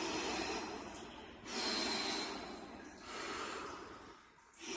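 A man breathing hard and fast while immersed in icy water: forceful, noisy breaths about every second and a half, each starting sharply and trailing off. It is the cold-shock response, breathing he struggles to control.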